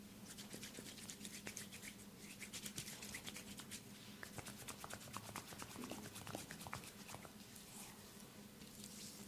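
Oiled hands massaging a person's head and neck: a rapid run of soft, wet clicks and rubbing on the skin and hair, thinning out about seven seconds in.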